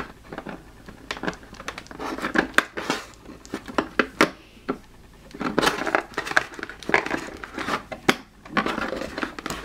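Hands pulling plastic packaging clips out of a cardboard toy-box insert: crinkling and rustling broken by many sharp clicks.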